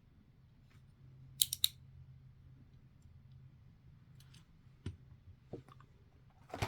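Sharp clicks and snaps of a diecast car's plastic blister packaging being handled and opened: two loud ones close together about a second and a half in, then a few fainter ones near the end.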